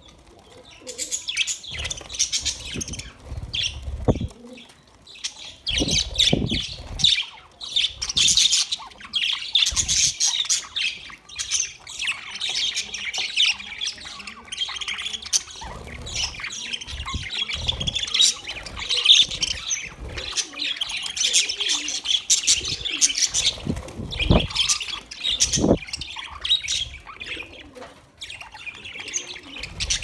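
A flock of budgerigars chattering and chirping continuously while pecking at seed, with many short sharp clicks of beaks at the food. Several low thuds, strongest near the start and about two-thirds of the way through.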